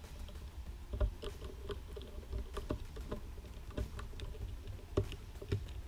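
Irregular small clicks, scrapes and knocks of a screwdriver undoing the corner screws of an Intel NUC mini PC's bottom plate and the metal-and-plastic plate being worked loose. The sharpest knocks come about a second in and about five seconds in.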